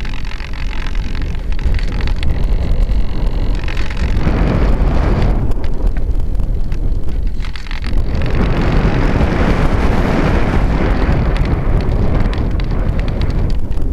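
Airflow buffeting the microphone of a small camera riding on a model aircraft in flight: a loud, uneven wind rush that swells about four seconds in and again from about eight seconds on as the plane banks and gathers speed.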